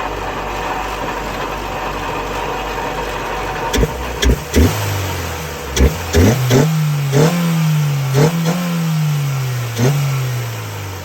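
Acura Integra GSR's B18C1 four-cylinder engine breathing through an open K&N clamp-on air filter with the airbox cover off. It idles steadily for about four seconds, then is revved in a series of quick throttle blips, each a sharp rise and fall in pitch, with intake noise loud in the sound.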